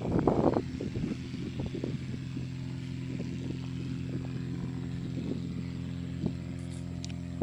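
Light aircraft piston engine, a Cessna 150/152's, running at a steady speed, with a brief louder rush of noise in the first half second.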